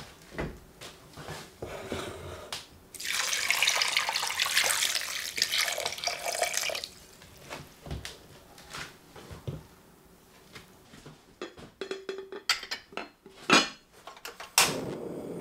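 Cold water poured into a ceramic pot of chopped vegetables, herbs and dried pulses for about four seconds. Then clinks and knocks as the pot is handled and set on a portable gas stove, and near the end a sharp igniter click followed by the steady hiss of the gas burner.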